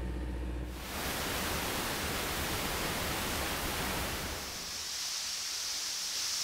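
Water gushing under pressure from a well, a steady rushing hiss; a low engine rumble cuts off about a second in as the rush takes over, and after about four and a half seconds the sound turns thinner and hissier.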